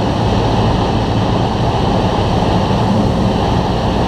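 Cessna 172's engine and propeller running in a steady drone mixed with airflow noise, heard inside the cabin in flight.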